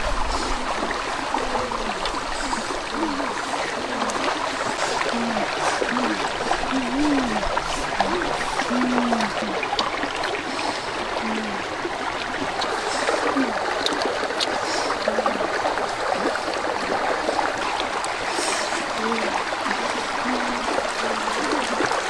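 Running water: a steady rush with short low gurgles every second or so.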